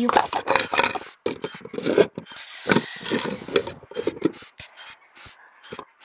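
Irregular rubbing and scraping of small plastic parts being handled: a toy agitator fitted into a homemade toy washing machine made from a plastic cosmetic jar, and its lid set on loosely. Busier in the first half, sparser near the end.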